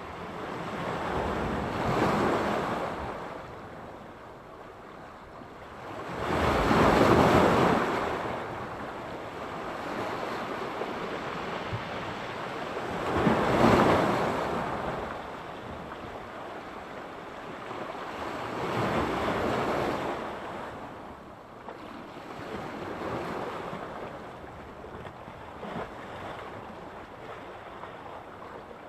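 Sea surf breaking on the shore, with waves surging and falling back every five to seven seconds, the strongest about seven and fourteen seconds in. Light wind noise on the microphone.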